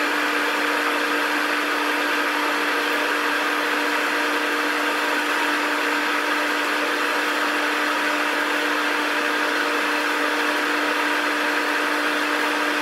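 Steady machine hum with a constant mid-pitched tone over an even rushing noise, unchanging throughout.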